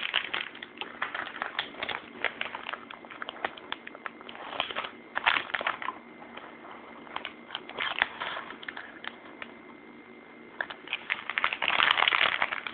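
Plastic packaging crinkling and crackling in irregular bursts as squishy toys are handled, with a faint steady tone beneath.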